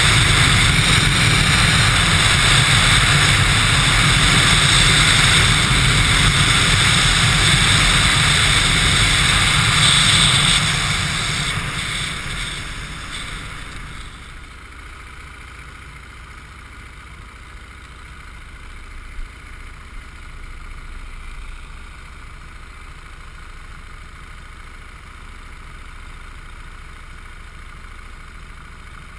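Motorcycle engine and wind rush on the microphone at riding speed for about ten seconds, then both fade as the bike slows, leaving the engine running quietly at low revs.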